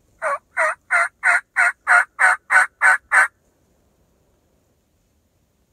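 Wild turkey yelps: a run of ten evenly spaced, loud yelps, about three a second, lasting about three seconds.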